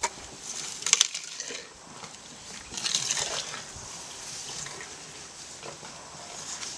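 Sleeping baby elephant's breathing: hissing, snorting puffs of breath. The loudest come about a second in and about three seconds in, with softer ones after.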